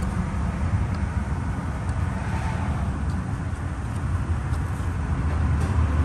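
Steady low rumble, with a few faint clicks of a rubber vacuum hose being pried off a plastic fitting on the intake.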